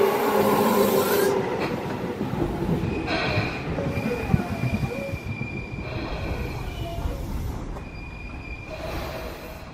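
Tobu Tojo Line ten-car electric commuter train running past and fading away as it recedes, its motor whine dropping in pitch at the start. A high squeal from the wheels on the rails comes and goes three times in the second half.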